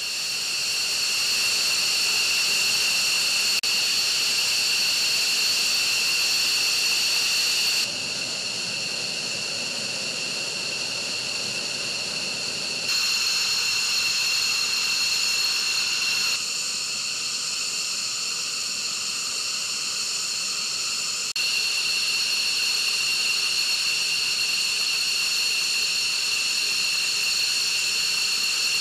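F-15E Strike Eagle jet engines running on the ground, a steady high-pitched turbine whine over a rushing hiss. The level and tone jump abruptly a few times where takes are cut together.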